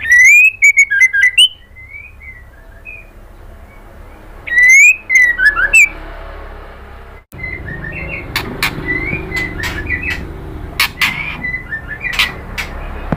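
White-rumped shama singing: loud, rising whistled phrases mixed with sharp clicking notes, in two bursts over the first six seconds. After an abrupt break, a run of shorter whistles and clicks follows over a steadier background hiss.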